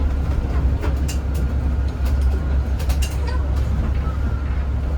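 Zhongtong hybrid range-extended city bus running, heard on board: a steady low rumble with scattered clicks and rattles.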